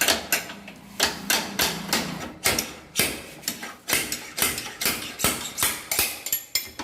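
Hammer repeatedly striking a motorcycle's rear wheel axle, about three sharp metal blows a second, driving out an axle that has seized in place.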